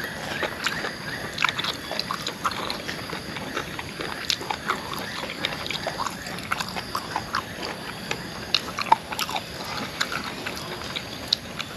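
Close-up mouth sounds of a man eating spicy papaya salad with noodles by hand: irregular wet chewing, smacking and lip clicks, a few a second.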